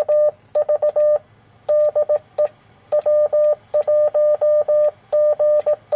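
Morse code (CW) sidetone from a Yaesu ham transceiver as it transmits on 6 meters through the antenna tuner. It is a steady mid-pitched tone keyed on and off in short and long elements, sent in several quick groups with brief pauses between them.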